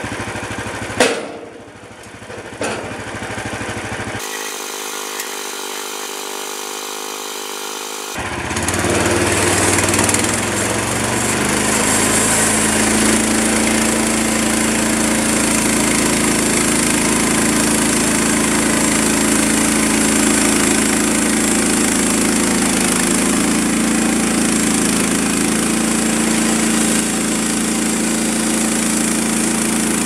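Frontier OS27 portable band sawmill with its gas engine running, a single sharp knock about a second in. From about eight seconds in the band blade cuts steadily through a log as the saw head is pushed along, the engine running under load with a high hiss from the cut.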